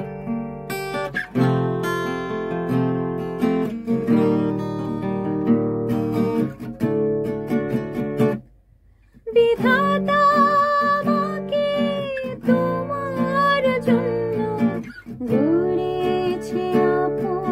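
Acoustic guitar strumming chords, breaking off for a moment about halfway; then a woman's voice sings a wavering, vibrato-rich melody in Bengali over the guitar.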